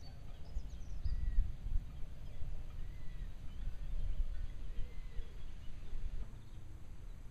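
Wind buffeting the microphone in uneven gusts, easing off near the end, with a few faint bird chirps.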